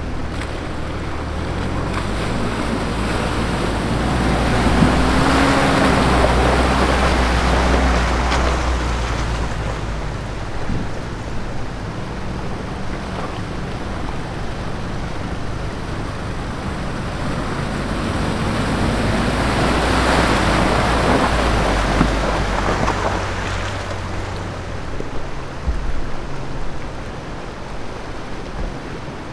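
Two 4x4 SUVs, second-generation Mitsubishi Pajeros, wading one after another through a shallow river: engines running under load and water churning around the wheels. The sound swells twice as each passes close, over the steady rush of the river.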